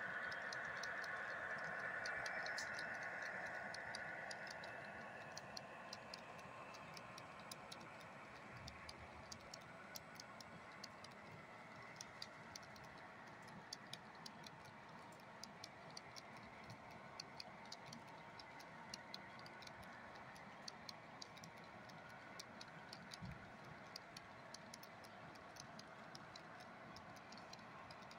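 Model DDA40X diesel locomotive's electric motor and gears whining as it runs past, fading over the first few seconds. Then comes the light, quick clicking of model tank cars' wheels over the rail joints as the train rolls by, a few clicks a second.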